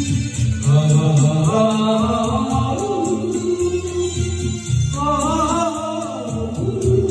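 A song: a wavering, ornamented vocal line sung in two phrases over instrumental accompaniment with a steady beat.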